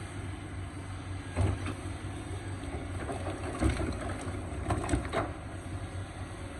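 Excavator engine running steadily, with several heavy clunks from the machine at work, the loudest about a second and a half in and near four and five seconds in.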